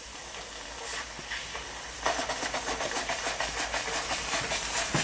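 Weeden 38 model steam engine hissing faintly, then, about two seconds in, spluttering in rapid puffs of steam as its flywheel turns over; the boiler is not yet up to enough pressure to keep it running.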